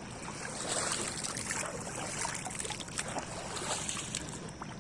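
Water splashing and trickling around a kayak as it is paddled, with many small irregular drips and splashes over a steady hiss.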